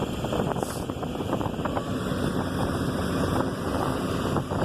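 House demolition: a steady engine rumble under a stream of rapid cracking and crunching of breaking debris.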